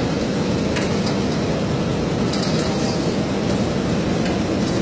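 Steady rumbling din of milking-parlour machinery, with a few faint clicks and clanks.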